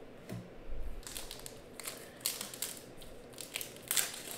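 Foil wrapper of a hockey trading-card pack crinkling and tearing as it is opened by hand, in a string of irregular rustles, loudest about four seconds in.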